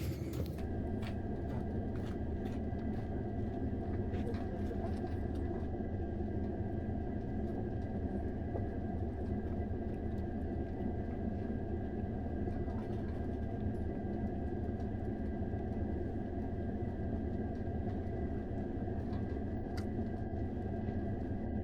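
A train passing on the railway line, a steady low rumble with a faint constant high whine over it.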